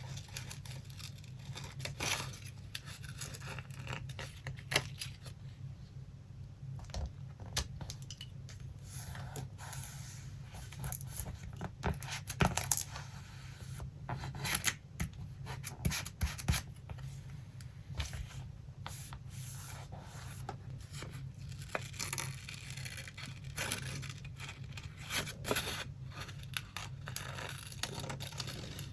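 Paper being handled for a collage: sheets rustled, rubbed and torn, with scattered sharp taps and clicks, over a steady low hum.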